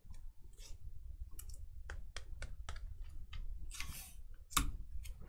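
Trading cards being flipped through and handled: a run of light clicks and snaps, a short rustle about four seconds in, and a sharper snap just after it.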